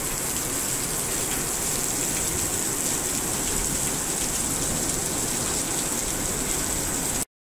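Heavy rain pouring down in a steady, even hiss, which cuts off abruptly near the end.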